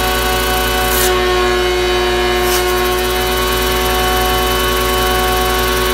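A Tornador cleaning tool hisses with compressed air while the vacuum drawing through its hose runs steadily. The air hiss cuts out about a second in and comes back a second and a half later.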